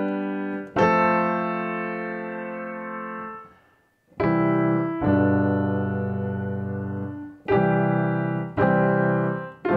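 Piano sound played on a keyboard: a slow melody starting on B, harmonised with plain I, IV and V chords in C major, as a series of held chords each ringing for a second or more, with a brief pause about four seconds in. The melody notes clash with these basic chords, a result called horrid.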